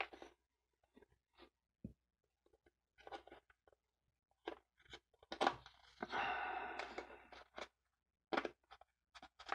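Small handling noises from a black plastic SSD packaging tray: scattered light clicks and taps, and a noisy scrape lasting about a second around six seconds in.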